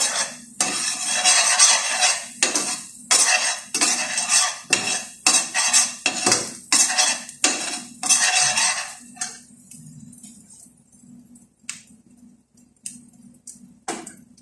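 Metal spatula scraping and stirring thick mashed fava beans in a stainless steel frying pan, in repeated strokes of about one or two a second. The scraping stops about nine seconds in, leaving a few light clinks of metal on the pan.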